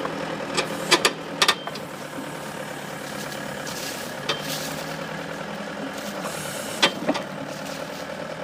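Bobcat 863 skid steer's diesel engine running steadily as it powers a Bobcat 909 backhoe attachment. Sharp knocks come several times in the first second and a half, once around four seconds in, and twice near seven seconds.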